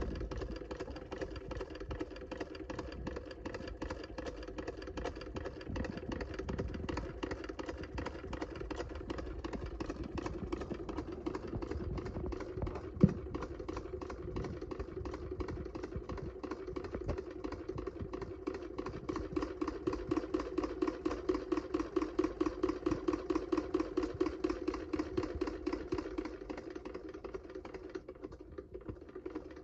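1885 Jones CS hand-crank sewing machine, restored, stitching through layered fabric: a fast, steady clatter of needle and shuttle strokes. One sharp click comes about halfway, the strokes grow stronger in the later part, and the run dies away near the end.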